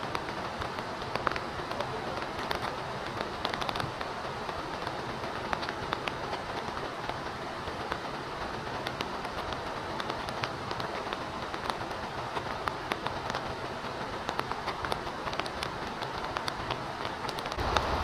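Steady rain: an even hiss with many scattered sharp drop ticks. A low rumble comes in near the end.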